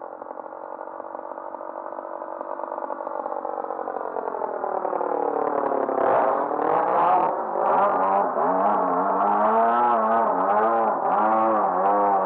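Engine and propeller of a radio-controlled Sbach aerobatic model plane flying past, growing louder as it approaches. Its pitch drops as it passes overhead about halfway in, then swoops up and down as it manoeuvres.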